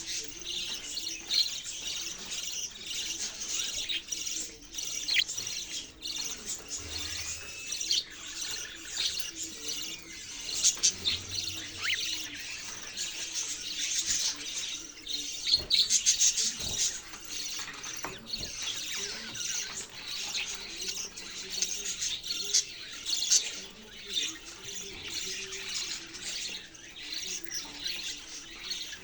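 Budgerigars chirping and chattering, a dense stream of quick high chirps with the odd squawk, never pausing.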